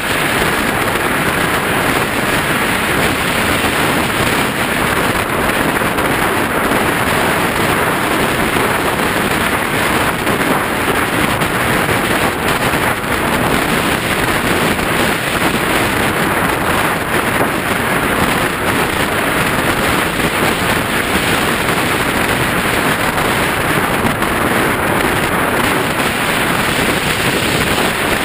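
Steady rush of wind on an onboard camera microphone riding on an RC flying-wing plane in flight, mixed with the plane's propeller running.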